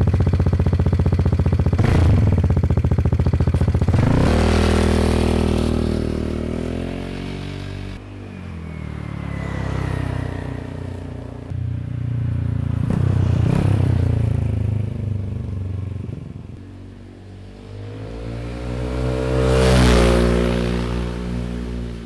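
Vespa GTS scooter's single-cylinder four-stroke engine through a VRX racing exhaust with the dB killer removed: blipped twice on the stand, then ridden off, fading with falling pitch. It returns louder in two passes, the loudest about two seconds before the end.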